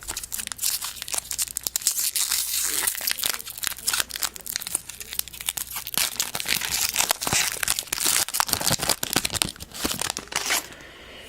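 Plastic wrapper of a Topps Chrome baseball card pack being torn open and crinkled in the hands: a dense run of crackling that stops near the end.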